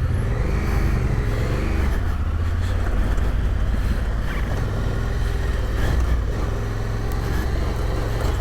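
Large adventure motorcycle engine running at low speed on a rough off-road track, its pitch rising and falling with the throttle, with a few knocks from the bike over the ground.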